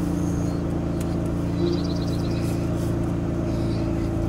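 A motor vehicle's engine running with a steady, even hum. A short, high, rapid chirping trill comes about two seconds in.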